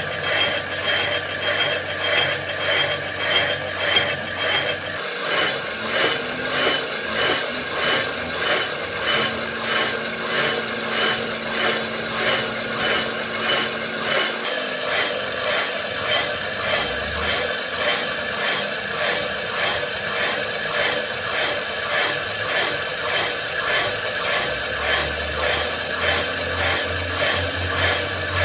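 Flywheel face being resurfaced on a grinding machine: a steady rasping grind that pulses evenly, about one and a half times a second, as the flywheel turns.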